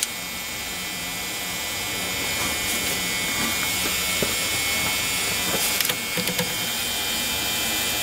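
Steady background buzz and hum, with a few faint clicks and rattles of a test-light probe and wiring being handled at a horn connector.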